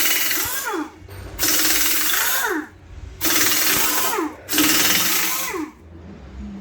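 Impact wrench undoing wheel nuts in four bursts of about a second each, each ending in a falling whine as the tool spins down.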